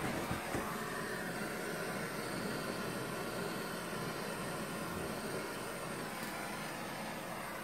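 Gas blowtorch burning with a steady hiss, its flame played onto a wasp nest.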